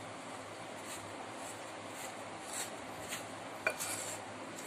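Wooden spoon stirring and scraping a dry flour and semolina mix in a glass bowl: a soft, faint rubbing, with a light knock of the spoon against the bowl a little after three and a half seconds in.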